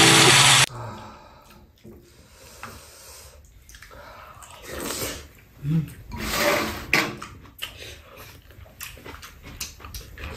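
Waltz background music cuts off just under a second in. Then come eating sounds: spoons clicking against bowls and a metal pan, with chewing and sipping of soup.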